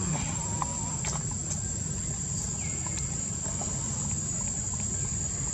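Outdoor forest ambience: a steady high-pitched insect drone over a low rumble, with a few faint clicks and a short chirp about two and a half seconds in.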